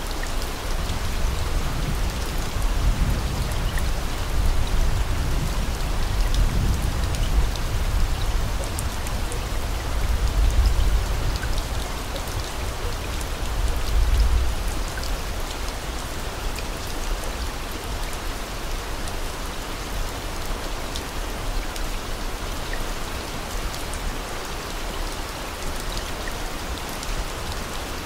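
Steady rain falling, a dense hiss with fine pattering drops. Low rumbling swells rise and fall through the first half, then ease off.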